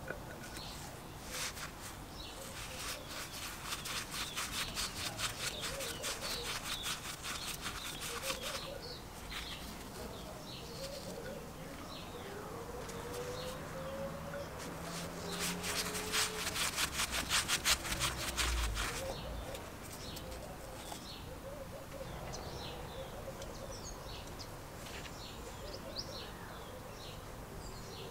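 A screwdriver backing out two Phillips screws from the metal diaphragm plate of a vintage Sprayit airbrush compressor, with two long runs of rapid clicking, one for each screw, the second ending a little after halfway.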